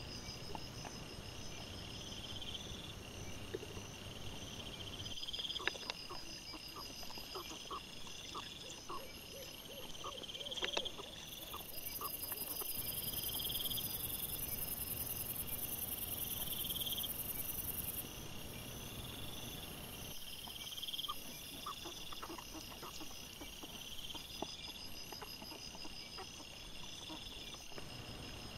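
Night insects chirping in a steady, evenly repeating pattern, with a higher hiss for several seconds midway. Scattered faint clicks and short squeaks come and go in two spells.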